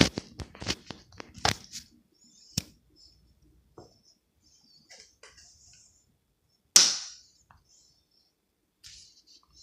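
Pug snuffling and snorting through its nose, with a burst of sharp clicks in the first two seconds and one loud, sudden snort about seven seconds in.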